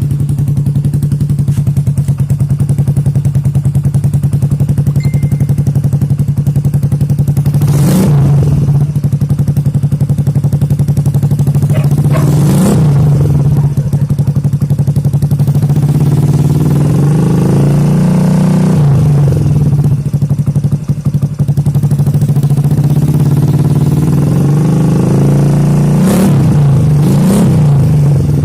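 Stock Yamaha Mio i 125 scooter's single-cylinder engine idling steadily through an Akrapovic open-pipe exhaust, with several quick throttle blips and one longer rev about midway.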